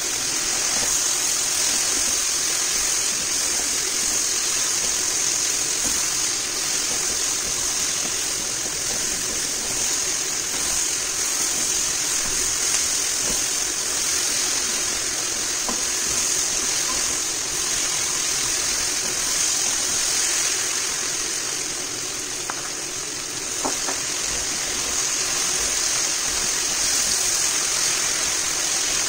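Vegetables frying in a cast-iron casserole pot as they are stirred, a steady high hiss of sizzling, with a couple of faint spoon ticks near the end.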